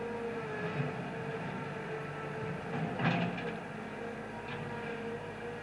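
Small bulldozer's engine running steadily, with a single clank about three seconds in.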